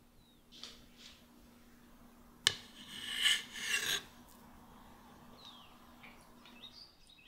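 A knife blade clicks against a plate, then scrapes and rubs across it for about a second and a half as a slice of cake is set down on it.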